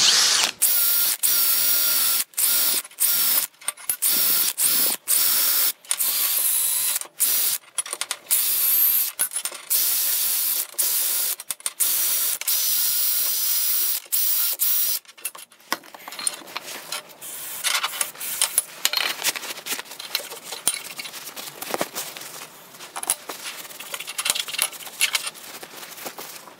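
A compressed-air tool hissing in many short bursts, each with a steady whine, while the connecting rods are cleaned. About fifteen seconds in it stops, giving way to quieter clinks and rattles of the rods being handled on the steel bench.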